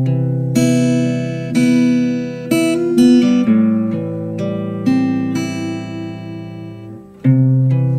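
Acoustic guitar playing a slow song intro: chords struck one after another and left to ring, a new chord about every second, with a brief dip about seven seconds in before the next strum.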